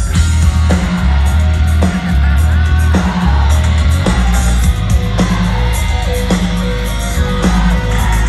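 Post-hardcore band playing live and loud: distorted electric guitars, bass and drums, with heavy accents about once a second, heard from within the crowd.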